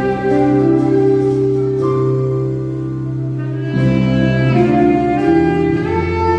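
Saxophone playing a slow worship melody in long held notes over a sustained backing-track accompaniment of low chords, which shift about two thirds of the way through.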